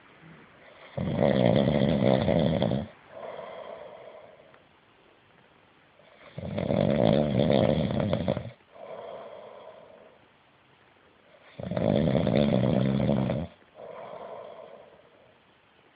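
Loud snoring: three snores about five seconds apart, each a long loud breath in followed by a softer breath out.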